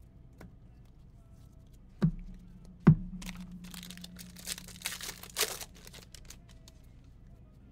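Two sharp knocks on a table about a second apart, the second louder, then a few seconds of crinkling and tearing as a foil trading-card pack wrapper is torn open.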